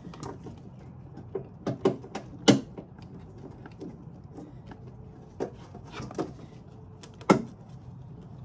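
Sharp plastic clicks and knocks from wiring-harness clips and plastic engine-bay trim being pressed into place by hand. There are about a dozen separate snaps, the loudest about two and a half seconds in and again about seven seconds in.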